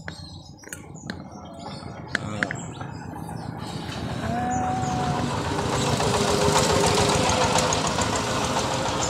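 A motor vehicle's engine running, growing steadily louder over the first six seconds or so and then holding.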